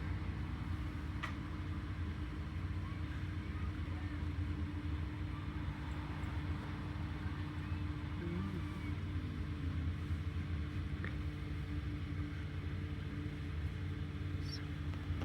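Steady drone of a 2019 Blue Bird Vision propane school bus heard from inside the bus: the engine running evenly with a low hum and rumble, and a couple of faint ticks.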